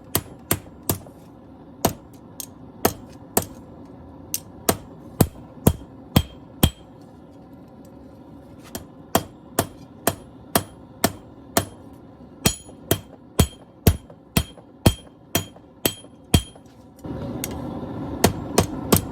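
Hammer forging a steel machete blade on an anvil: sharp, ringing blows about two a second, with a pause of a couple of seconds partway through. Near the end a steady rushing noise comes in under the blows.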